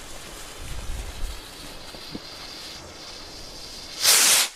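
Small firework rocket from a Galaxy set launching from its launcher: a sudden, loud, short rushing whoosh about four seconds in, after a few seconds of wind rumbling on the microphone.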